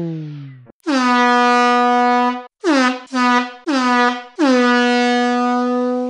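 Digitally altered air horn. First the tail of a blast whose pitch slides steadily down as it fades out, about 0.7 s in. Then the familiar meme air-horn call slowed to half speed and lower in pitch: a long blast, three short blasts, and a final long blast.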